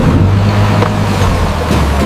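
Heavy machine engine running steadily with a low rumble, under an even rushing noise, with a few light clicks.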